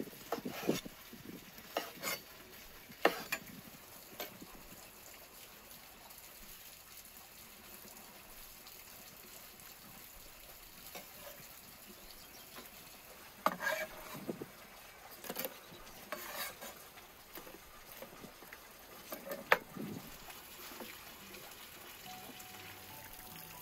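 A cleaver cutting through sausage onto a wooden cutting board: several sharp knocks in the first few seconds, then a long quiet stretch, then a second cluster of knocks and clatter between about 13 and 20 seconds.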